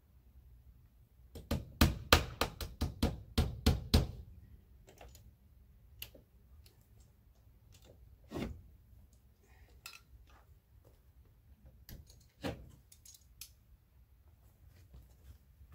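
Hammer driving nails into lap siding: a quick run of a dozen or so sharp strikes, then scattered lighter knocks and taps.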